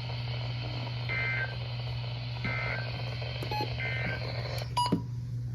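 Three short bursts of EAS SAME digital data tones, a shrill two-tone warble, about a second and a half apart: the End of Message code that closes a weather radio warning. A steady low hum runs underneath, with a few clicks near the end.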